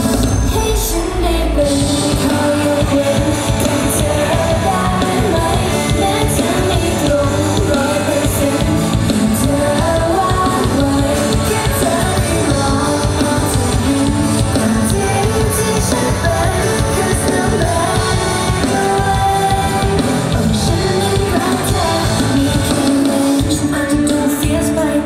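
Live pop song played loud by a band with electric guitar and drums, with female voices singing over it through the PA.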